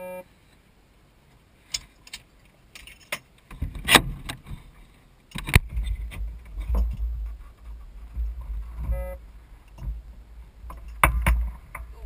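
Clicks, rattles and a few sharp knocks of a glider's cockpit canopy and fittings being handled, with two loud knocks about four and five and a half seconds in and more near the end. A low, uneven rumble sets in about three and a half seconds in.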